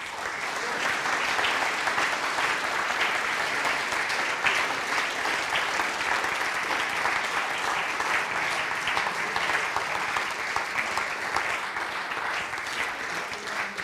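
Audience applauding in a hall. The clapping breaks out suddenly, holds steady as a dense patter of many hands, and eases slightly near the end.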